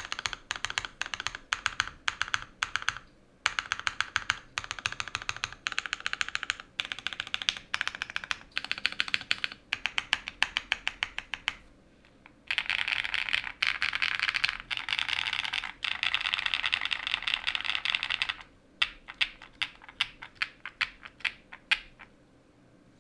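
Typing on a QK100 gasket-mounted mechanical keyboard with a polycarbonate plate, lubed and filmed Owlab London Fog switches and PBT keycaps. About twelve seconds of steady typing give way to roughly six seconds of very fast, almost unbroken typing, then slower separate keystrokes, stopping about a second before the end.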